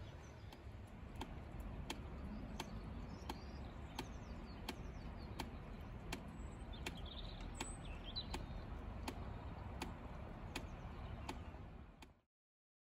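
Outdoor winter ambience: a steady low rumble of wind on the microphone, a few faint bird chirps, and a regular ticking about every 0.7 seconds. The sound cuts off abruptly near the end.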